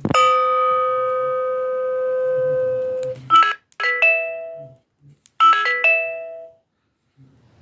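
A BlackBerry Curve 8520 ringtone playing: one long held note for about three seconds, then two quick runs of short notes that ring out, like a door chime.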